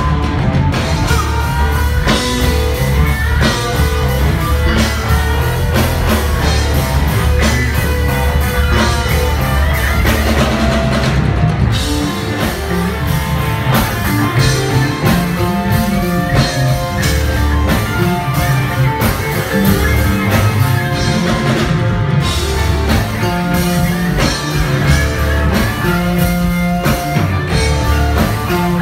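Live rock band playing an amplified song: electric and acoustic guitars over bass and a drum kit, with little or no singing.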